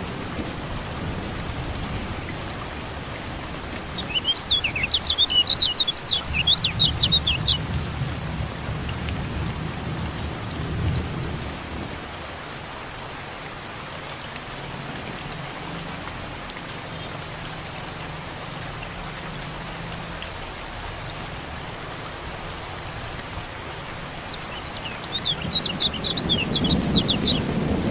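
Steady rain with low thunder rumbles, over which a kecial kuning white-eye gives rapid runs of high, quick twittering chirps, once about four seconds in and again near the end.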